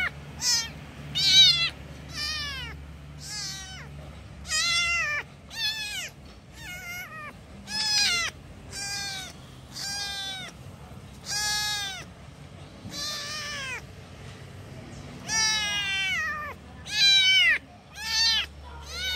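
A young kitten meowing over and over, high-pitched cries of under a second each, about one a second with short gaps, many sliding down in pitch at the end. These are a young kitten's calls for its mother.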